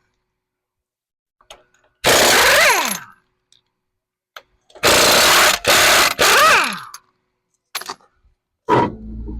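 Impact wrench hammering in several short bursts, each ending in a falling whine as the motor spins down after the trigger is let go. It is loosening lug nuts that are on really tight.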